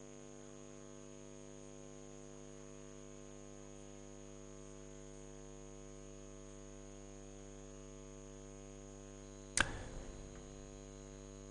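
Faint steady electrical hum, a stack of unchanging tones with no other sound, broken once, near the end, by a short sharp click.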